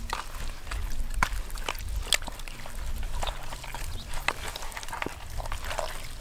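Hands squelching and smacking as they rub a thick, wet spice marinade into raw poultry in a plastic basin: an irregular run of short, sticky clicks and slaps.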